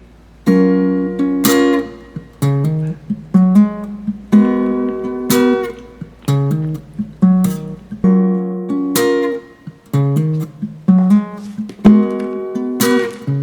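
Acoustic guitar background music: strummed chords starting about half a second in, each one ringing out before the next.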